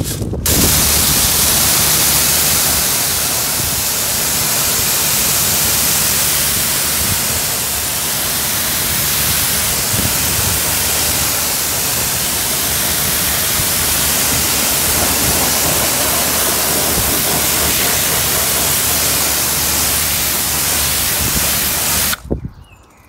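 Pressure washer jet rinsing foam off a car's alloy wheel and tyre: a loud, steady hiss of spraying water with a low hum underneath. It cuts off near the end.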